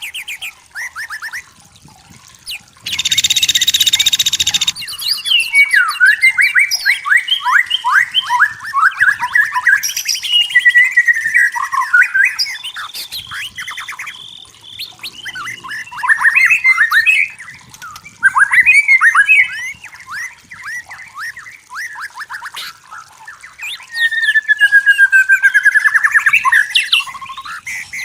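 White-rumped shama singing a long, varied song of fast trills, rapid chattering notes and clear whistles, with a loud harsh buzzing burst about three seconds in and a long sliding whistle near the end.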